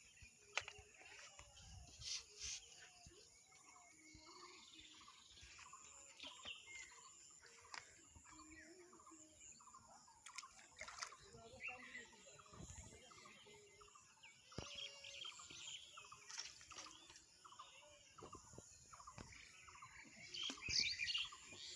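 Faint outdoor ambience with birds chirping. There is a run of short repeated calls and a few light clicks, and a burst of higher chirps near the end.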